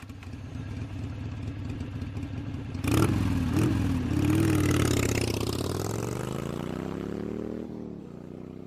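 Motorcycle engine running steadily, then revved sharply about three seconds in and climbing slowly in pitch as it accelerates, easing off near the end.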